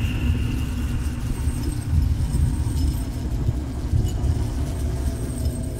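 Dark ambient soundscape: a deep, steady rumbling drone with faint high tones above it, one of which fades away in the first second or so.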